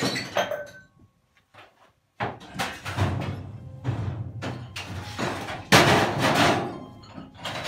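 Objects knocking and banging about in a basement, over background music: a string of thuds begins about two seconds in, and the loudest crash comes near six seconds.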